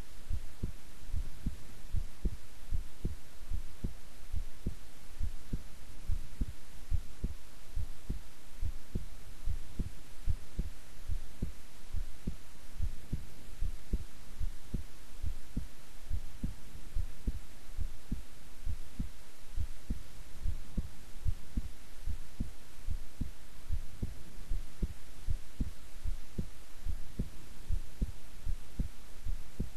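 A woman's heartbeat recorded at rest: a steady, even rhythm of soft low thumps over a faint low hum.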